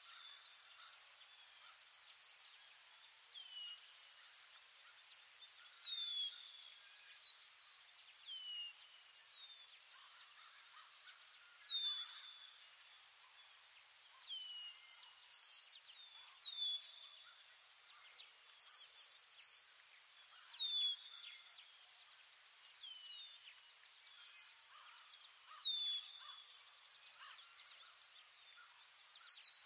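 Ambient forest recording: a steady, high-pitched pulsing insect chorus with short, falling bird chirps repeated about once a second, sometimes in quick pairs.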